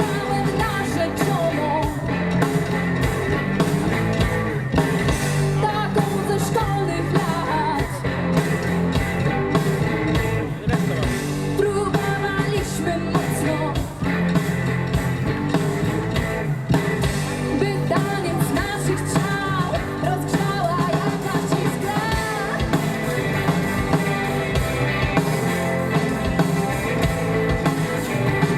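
Rock band playing live: drum kit with a steady beat, bass and electric guitars, with a melodic lead line bending in pitch over the top.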